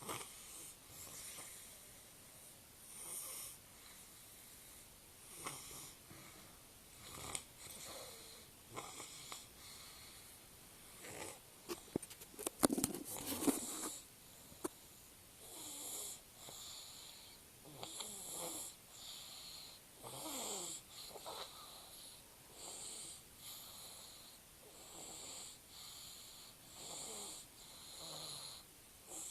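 A sleeping young child snoring with a wheezy, hissing breath, one snore every second or two. A louder disturbance about twelve seconds in briefly breaks the rhythm.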